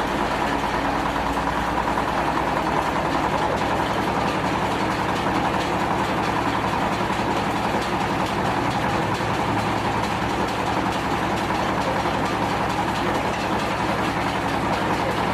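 Stone crusher machine running steadily, a continuous mechanical noise with a fast, even rattle over a low hum.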